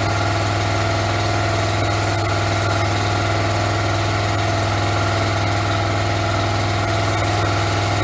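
Pressure washer engine running at a steady speed, with the hiss of snow foam spraying from a forming head at the end of a long water-fed pole.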